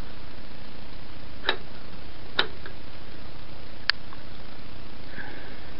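Three sharp clicks, irregularly spaced over about two and a half seconds, from a hard probe tip tapping on the glass of an oscilloscope screen, over a steady hiss.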